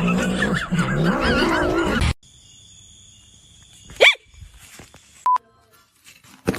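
An animal's loud, drawn-out call with a wavering pitch, cut off abruptly about two seconds in. Then a quiet stretch with one short sweeping chirp and a brief steady beep.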